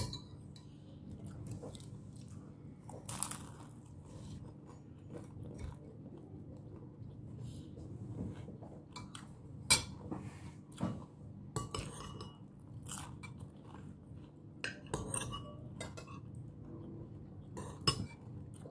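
Eating at a table: a spoon and fork clink and scrape on a plate in scattered, irregular clicks, mixed with chewing and the crunch of a fried spring roll. A steady low hum runs underneath.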